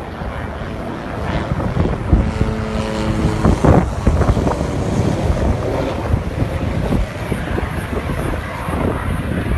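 Firefighting helicopter flying overhead, its rotor noise mixed with heavy wind buffeting on the microphone. A brief steady tone sounds about two seconds in.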